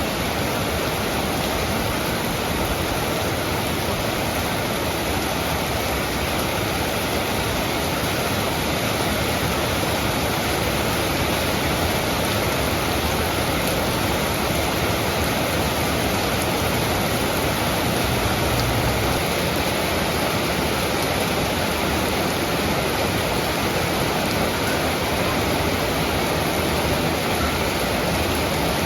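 Steady heavy rain: an even, unbroken hiss of falling water with no separate drops or other events standing out.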